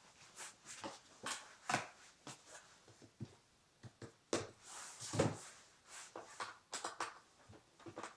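Irregular clicks, knocks and rustling of something being handled, with a few louder knocks about two, four and five seconds in.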